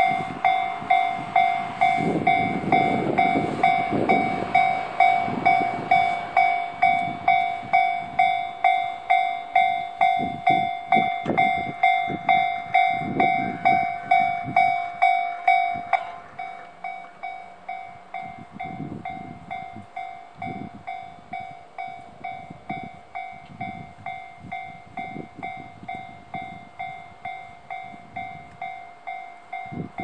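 A Japanese railway level crossing's electronic warning bell rings in a steady rhythm of about two strokes a second. About sixteen seconds in it drops suddenly to a quieter level and keeps ringing.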